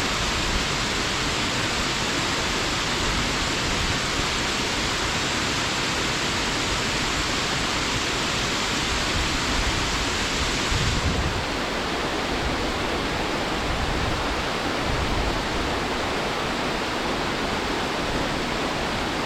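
Namase Falls pouring steadily, a dense, even rush of falling water. About eleven seconds in the sound changes abruptly to a duller rush with less hiss and more low rumble.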